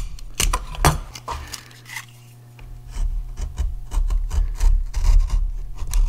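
A few sharp knocks in the first second, then from about three seconds in a utility knife scraping and shaving the inside edge of a pocket door handle cutout in short repeated strokes. The knife is back-cutting the opening so the handle's cup and screw boss can sit in flush.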